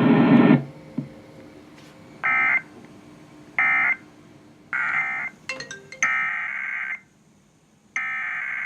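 Emergency Alert System SAME digital data bursts. First come three short, buzzy, screeching bursts about a second apart, the end-of-message code. After a few clicks about halfway through, two longer bursts follow, typical of the header that opens a new alert.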